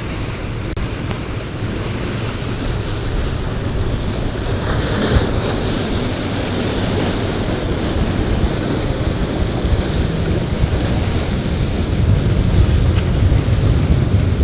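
Wind buffeting the microphone over the wash of choppy sea waves breaking against shore rocks, with a louder splash about five seconds in.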